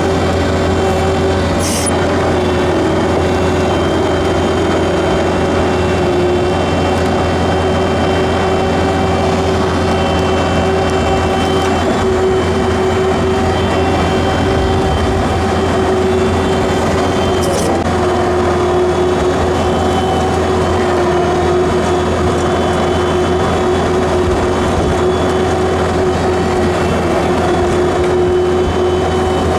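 A farm machine's engine running steadily while pushing snow, with a steady whine over it. There are two brief clicks, about two seconds in and again about seventeen seconds in.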